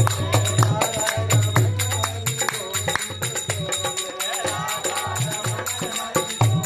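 Devotional bhajan: a voice singing over low drum beats and jingling tambourine-like percussion in a steady rhythm.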